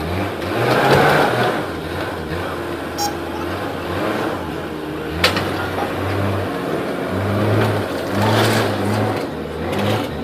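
JCB 3DX backhoe loader's diesel engine running, its note shifting up and down as the hydraulics are worked, with a couple of sharp metallic clicks.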